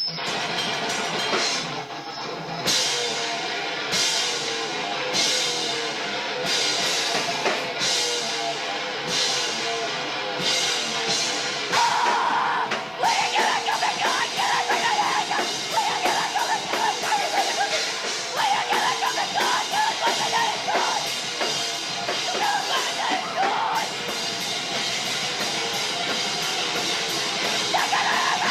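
Live rock band playing a heavy song on drum kit and guitar, with crashes about every second and a quarter at first. The full band gets louder and denser about twelve seconds in.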